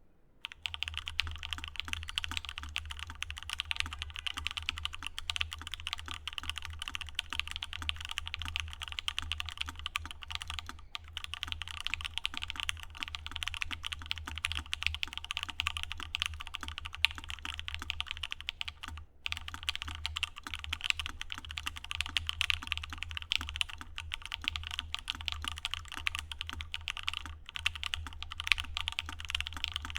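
Continuous fast typing on a Freyr custom mechanical keyboard with lubed and filmed JWK Banana Split linear switches on a full aluminium plate and C3 stabilisers. It starts about half a second in and breaks off briefly about two-thirds of the way through.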